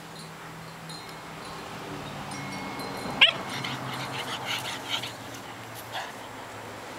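Bernese mountain dog puppy giving one short, sharp yip about three seconds in, falling quickly in pitch, followed by a scatter of light clicks as it trots about.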